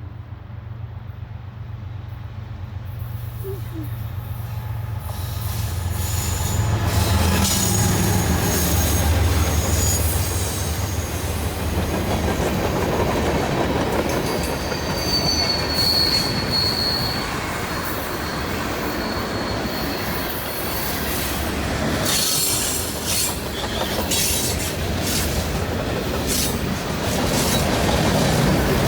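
Norfolk Southern local freight train passing close by. A low diesel locomotive rumble builds over the first several seconds and is loudest about eight to ten seconds in. Then the rolling cars clatter past, with brief high-pitched wheel squeals midway.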